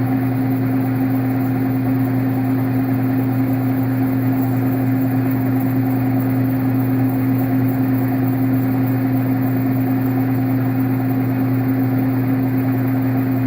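Metal lathe running steadily while boring bushing stock, with an even, unchanging hum from its motor and drive.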